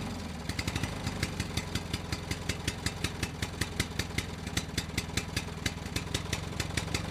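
Small engine chugging steadily like an idling tractor, with sharp, even putts about six or seven a second.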